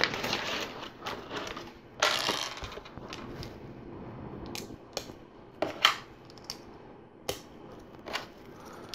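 Small plastic LEGO pieces being handled and pressed together: a rustle about two seconds in, then a scatter of sharp single clicks as the parts snap into place.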